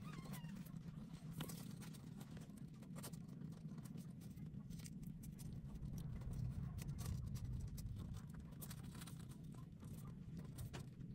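Newborn kittens suckling at their mother cat: many soft, wet clicks and smacks over a low, steady rumble. There is a brief high squeak at the very start.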